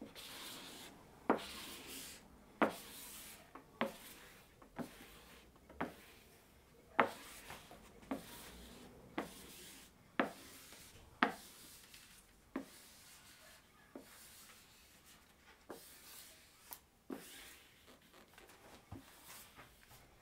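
Plastic squeegee swept again and again over a printed vinyl decal sheet to smooth it down. Each stroke, roughly one a second, opens with a sharp tick and trails off in a short rubbing hiss.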